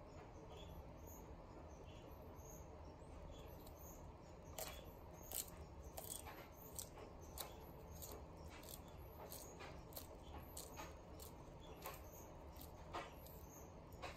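Sulcata tortoise eating fresh grass, its bites making sharp, irregular crunching snaps. The snaps come more often from about four seconds in.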